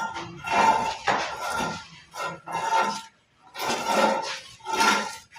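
Steel mason's trowel scraping and smoothing plaster along the edge of a door jamb in repeated strokes, about seven in all, each with a faint metallic ring.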